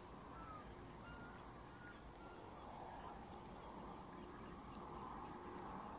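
Faint outdoor ambience: a low steady rumble with a few short, faint bird calls in the first couple of seconds.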